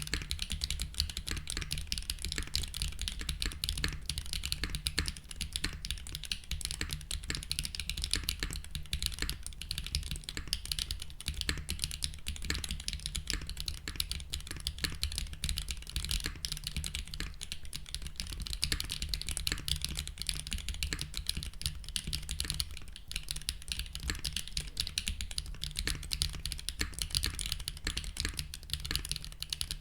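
Steady, continuous typing on a custom mechanical keyboard fitted with lubed 48 g Wingtree Camellia linear switches: a sharp, clacky keystroke sound with a little scratch in the travel.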